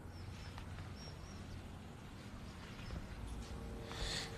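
Quiet room tone with a low hum and a few faint, short high chirps in the first second and a half, and a soft hiss that swells just before the end.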